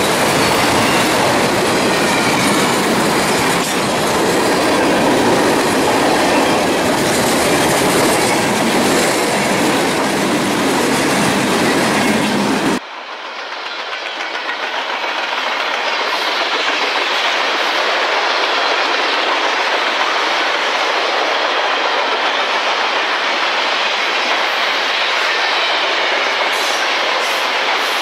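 Norfolk Southern freight train's cars rolling past close by, steel wheels running on the rails in a steady loud din. About 13 s in, the sound cuts abruptly to a second recording of the passing cars without the deep rumble, quieter at first and then building back up.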